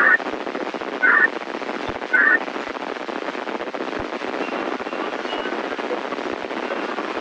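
Steady radio hiss from a receiver tuned to a VHF disaster-prevention radio channel, with three short, louder bursts about a second apart in the first two and a half seconds.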